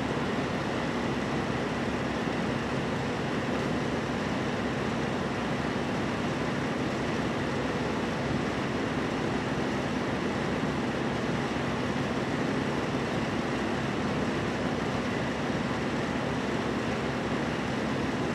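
Steady background hum and hiss of room noise, unchanging throughout, with no distinct sounds.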